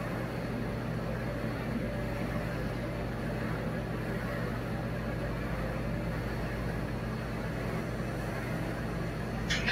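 A steady low mechanical hum runs throughout, with one short sharp clack near the end.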